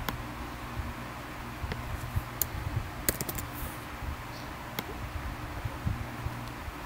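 A few light, sharp clicks from a computer keyboard and mouse being worked, including a quick cluster of clicks a little past the middle, over a steady low hum.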